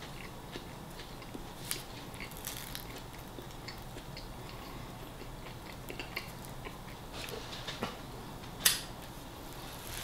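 Close-up sounds of a person eating a sub sandwich: quiet chewing and wet mouth smacks, with small scattered clicks and crinkles from the bread and paper wrapper being handled. One sharper click stands out near the end.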